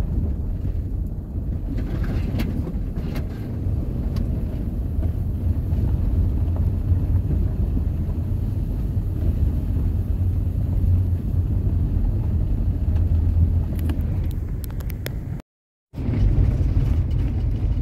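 Motor vehicle driving on a dirt road, a steady low rumble of engine and tyres with a few light rattles and clicks about two to three seconds in and again near fourteen seconds. The sound cuts out completely for about half a second near the end.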